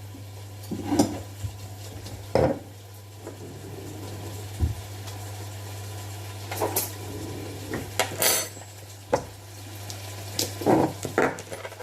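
Utensils clinking and knocking on a frying pan and kitchenware, about seven scattered knocks, while minced meat and onion sizzle faintly in the pan. A steady low hum runs underneath.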